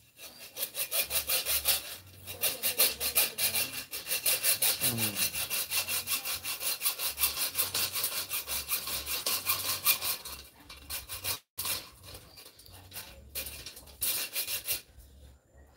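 Hand saw cutting with a quick, steady back-and-forth rhythm of strokes that stops about ten seconds in, followed by a few scattered knocks.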